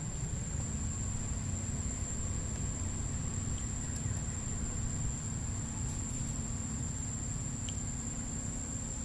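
Outdoor ambience: a steady, high-pitched insect tone over a low rumble, with a few faint ticks.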